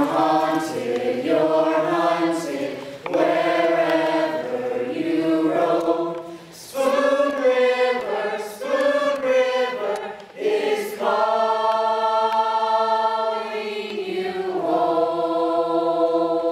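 Mixed choir of teenage male and female voices singing together in sung phrases with short breaks for breath, ending in long held chords near the end.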